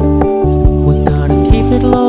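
Background pop music: acoustic guitar and bass over a steady beat, in an instrumental stretch before the vocals come in.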